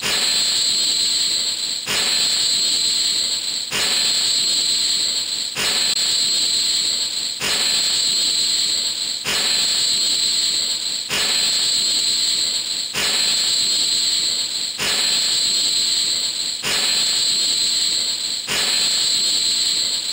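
Electronic sound effect from a Zoffy Hyper Key toy's speaker: a hissing, high whistle-like loop that restarts abruptly about every two seconds.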